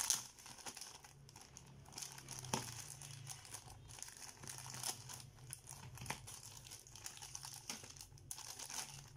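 Thin clear plastic bag crinkling and rustling as hands work it open, with scattered sharp crackles, the loudest about two and a half seconds in.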